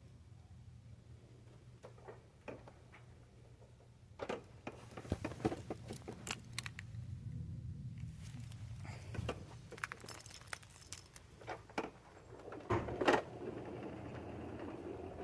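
Irregular light clicks and rattles, like small hard objects being handled, over a faint steady low hum.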